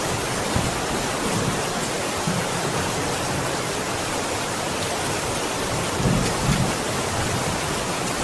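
Steady heavy rain, an even hiss, with low rolls of thunder rumbling underneath; the strongest rumble comes about six seconds in.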